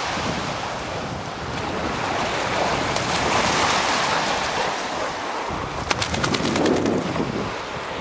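Lake waves washing in, with wind buffeting the microphone. The surf swells up about three seconds in, and a quick run of sharp ticks follows near the end.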